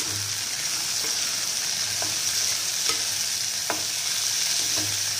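Cauliflower florets and green peas sizzling steadily in hot oil in a non-stick kadhai while a spatula stirs them, with a few short sharp clicks scattered through.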